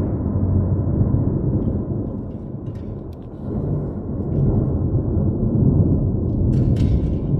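Thunder rumbling in a long, continuous low roll that eases off about halfway through and swells again, with a few faint clicks near the end.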